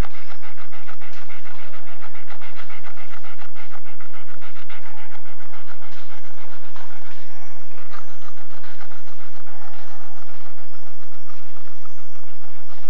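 Rottweiler panting hard in a fast, even rhythm; about halfway through, the rhythm breaks up and becomes irregular.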